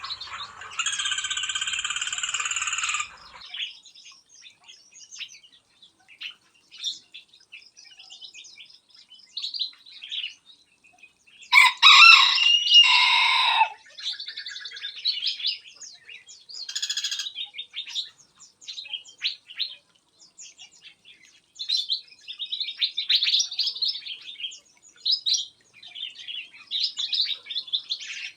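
Aviary songbirds chirping and calling in short bursts, with a long held call near the start and a loud rooster crow lasting about two seconds around the middle.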